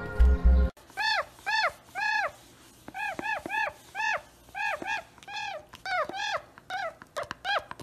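Music cuts off under a second in, then a toucan gives a run of short yelping calls, each rising and falling in pitch, singly or in quick groups of two or three.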